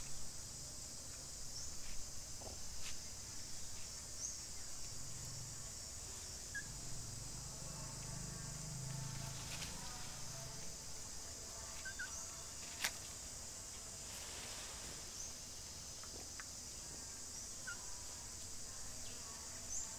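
Steady high-pitched drone of an insect chorus, with a few short chirps and scattered light ticks. One sharp click about 13 seconds in.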